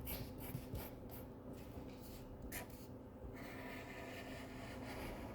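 Faint scratching of lines being drawn on paper, several short strokes in the first three seconds.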